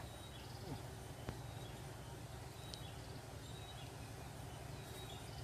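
Quiet outdoor ambience: a steady low hum with faint short bird chirps now and then and a light click about a second in.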